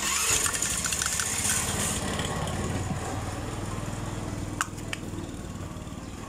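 A small motor or engine running with a fast, rough pulse, slowly getting quieter.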